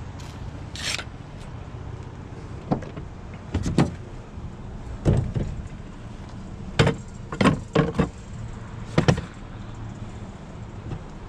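A steady low vehicle engine rumble with a series of sharp clacks and knocks scattered irregularly over it, as of something hard being handled.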